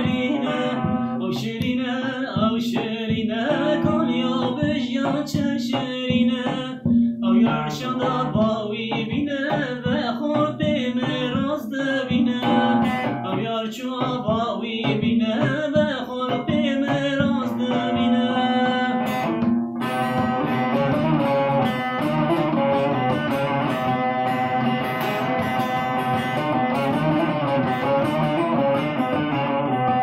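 Man singing a folk song to his own bağlama (long-necked saz), plucked throughout. About two-thirds of the way through, the voice drops out and the saz carries on alone.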